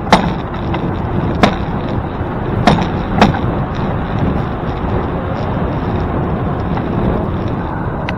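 Wind rushing over the microphone during a bicycle ride, a steady low rumble, with four sharp knocks in the first few seconds.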